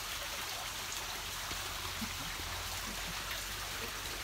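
Steady rush of river water, an even unbroken hiss.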